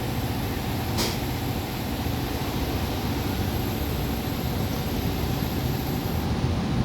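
Brake disc lathe running steadily with a low hum and a faint high whine, and a single sharp click about a second in.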